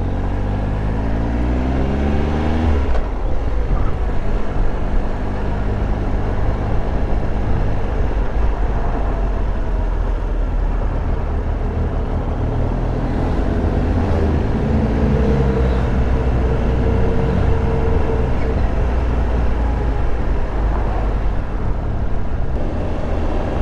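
Triumph Tiger Explorer 1200's three-cylinder engine under way, with wind and road noise. The engine note rises over the first three seconds, breaks off at a gear change, and rises again about halfway through.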